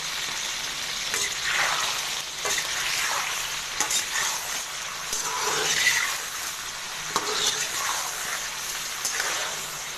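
Chicken pieces sizzling in hot ghee in an iron karahi, with a metal spatula stirring and scraping them in repeated strokes over the steady hiss of frying.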